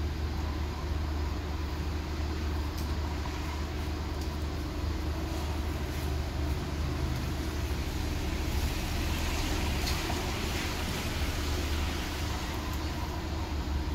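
Steady low rumble of street traffic, swelling for a couple of seconds about nine seconds in as a vehicle goes by.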